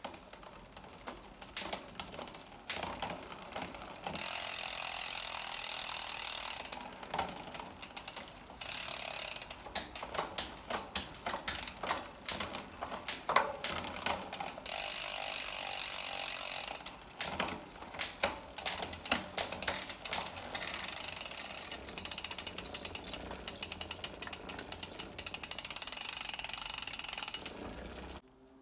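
Bicycle drivetrain running on a repair stand, the chain turning over the cassette through a Campagnolo Chorus 9-speed rear derailleur as the freehub pawls ratchet. It comes in several stretches of steady buzzing, each a few seconds long, broken by quicker runs of separate clicks. This is the wheel being spun to test the freshly cabled rear derailleur.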